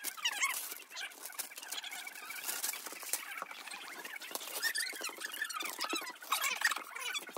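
Wrapping paper tearing and crinkling as a large gift box is unwrapped, mixed with a stream of short, high squeaky sounds.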